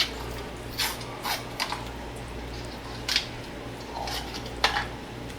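Scattered light clicks and taps of small hard items being handled on a work surface, about five clear ones, over a steady low electrical hum.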